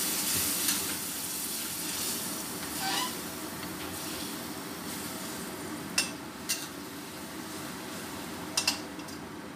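A metal spatula stirs tempe, green beans and tofu in a stainless steel wok, with a little water added to simmer the spice paste. The pan sizzles steadily, dying down gradually. The spatula clicks sharply against the wok about six seconds in, again half a second later, and twice in quick succession near the end.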